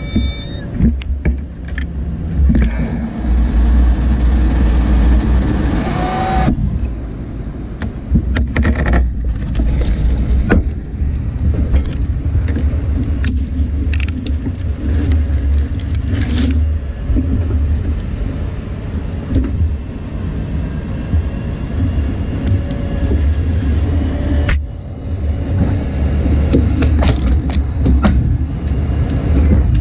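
GMT035 crane-mounted hydraulic grapple saw at work: a steady low machine rumble with a thin high whine, broken by many sharp knocks and cracks as the grapple grips, cuts and swings the tree top.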